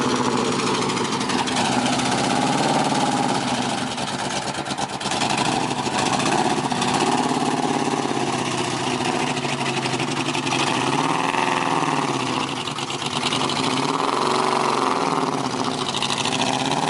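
Motor vehicle engine running steadily, its pitch rising and falling repeatedly as the revs change.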